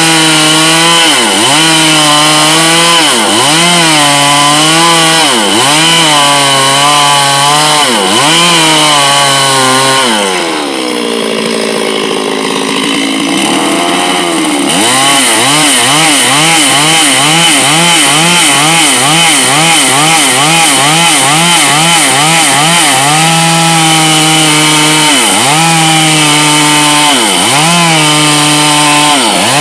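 Chainsaw running at high revs and cutting wood, its pitch dipping again and again as the chain bites under load. About ten seconds in it drops back to a low speed for a few seconds, then revs up and cuts on.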